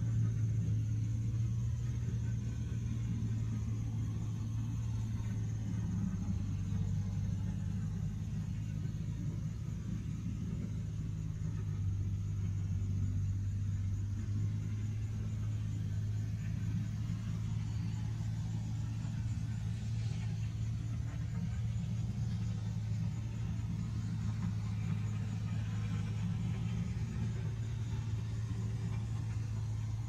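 Heavy diesel engine of forestry equipment running steadily, a low even drone with no clear knocks or cutting.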